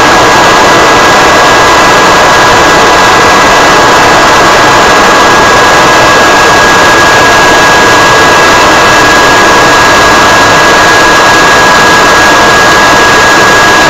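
Jet engine noise heard aboard an aircraft in flight: a steady, loud rushing roar with a constant high whine through it.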